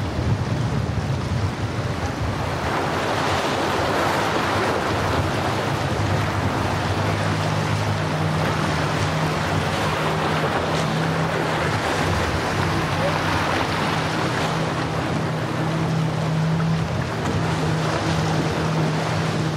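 Motor yachts running past through choppy water: a steady rush of water wash and wind, under a low, even engine drone that becomes clearer partway through.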